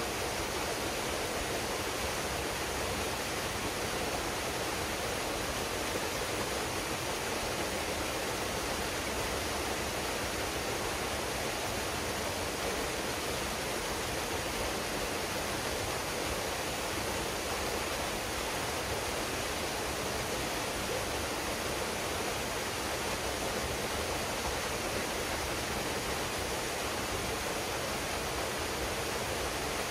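Waterfall pouring into a pool: a steady, unchanging rush of falling water.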